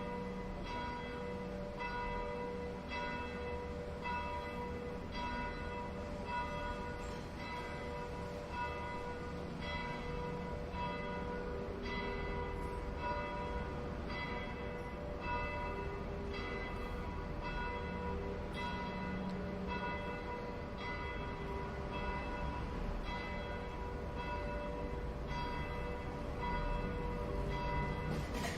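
Bells ringing in a steady repeating peal, about one and a half strikes a second, each stroke ringing on.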